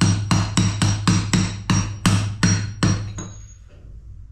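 Hammer blows on a large socket, driving the leaking old oil seal out of a Ferguson TEF20 PTO shaft housing clamped in a vise. Sharp metallic strikes come steadily, about three a second, with a light ring, and stop about three seconds in.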